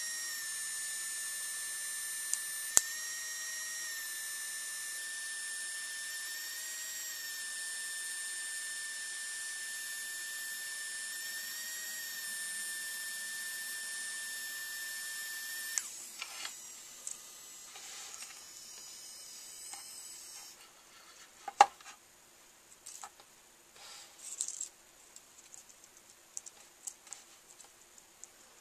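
3Doodler 3D printing pen's drive motor whining steadily as it extrudes plastic filament, a high tone with slight wobbles in pitch, which stops about 16 seconds in. Afterwards there are light clicks and the handling of small plastic pieces, with one sharp click about 21 seconds in.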